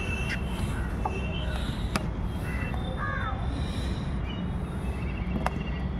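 Crows cawing every second or so, several separate short calls, over a steady low rumble. There are two sharp clicks, at about two seconds in and near the end.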